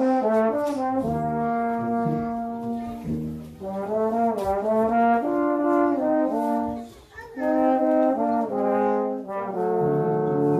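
Brass quintet playing a tango: trumpets, trombone and tuba in held chords over a moving bass line, the phrases breaking off briefly about a third and two-thirds of the way through.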